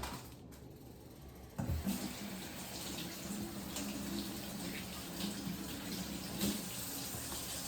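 Kitchen tap running steadily into the sink as a raw whole chicken is rinsed under it, the stream coming on suddenly about a second and a half in.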